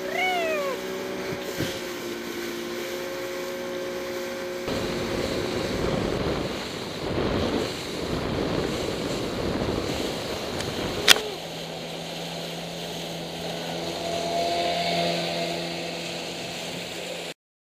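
Outboard motors of small powerboats running under way at speed, over wind on the microphone and the rush of the wake. The engine sound changes abruptly twice, and there is one sharp click about eleven seconds in.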